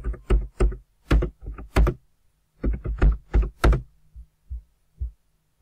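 Typing on a computer keyboard: about twenty sharp keystrokes in two quick runs, with a short pause about two seconds in.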